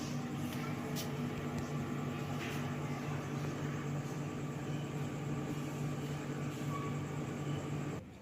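Panasonic CS-YN9TKJ mini-split air conditioner running, a steady hum of its fan with the rush of blown air. The sound drops off sharply near the end.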